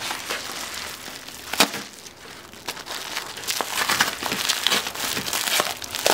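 A paper postal mailer being torn open and crumpled by hand, with sharp crackles of paper and the crinkle of plastic wrapping inside. The rustling gets busier partway through.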